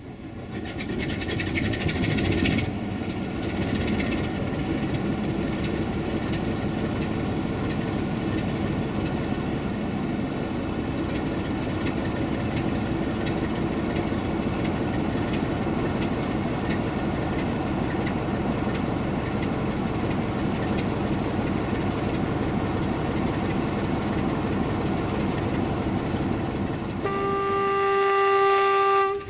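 A CFR Class 60 (LDE2100) diesel locomotive's Sulzer 12LDA28 twelve-cylinder engine starting up: it builds quickly over the first couple of seconds and settles into a steady idle. About 27 seconds in, the locomotive's horn sounds one steady note, the loudest part, for about two seconds before cutting off abruptly, as the engine moves off to shunt.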